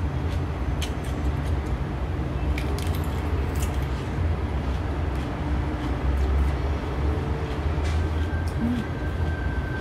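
A few short, crisp crunches of teeth biting and chewing a whole raw cucumber, over a steady low rumble.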